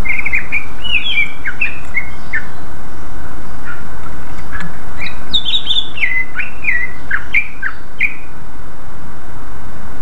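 Male cucak ijo (greater green leafbird) singing in full voice: two runs of quick whistled notes sliding up and down, one at the start and another about five seconds in, over a steady background hiss.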